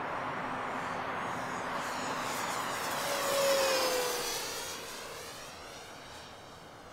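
Electric motor and propeller of a FlightLine RC Ta 152H foam warbird, running on a 4S battery, making a fly-by. The whine grows louder, drops in pitch as the plane passes about three and a half seconds in, then fades as it flies away.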